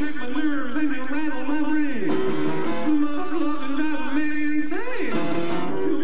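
Instrumental music led by guitar, its melody line wavering and bending in pitch, with one sweep upward near the end.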